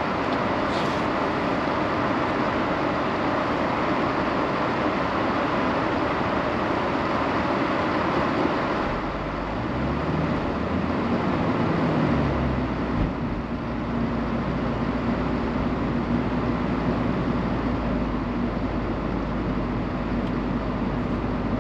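Car heard from inside the cabin: a steady hiss while it waits at a red light, then about ten seconds in the engine note rises twice as it accelerates away, settling into a steady drone once it is moving.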